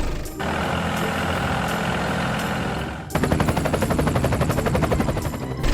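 Truck engine sound running steadily, then changing to a fast, even rattling chug about three seconds in.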